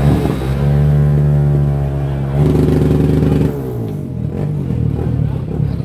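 Motorcycle engine running at a held, steady note, getting louder about two and a half seconds in and then dropping away a second later.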